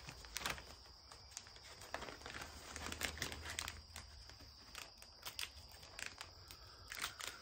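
Plastic zipper bag crinkling faintly as hands hold it open and pull a cracked egg apart over it, with scattered small clicks and ticks.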